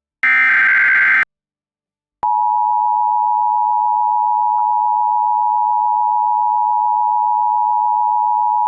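Emergency Alert System tones: a SAME header data burst, a buzzy electronic screech about a second long, then after a second of silence the EAS two-tone attention signal (853 and 960 Hz together), starting about two seconds in and holding steady. Together they announce the start of an emergency alert message.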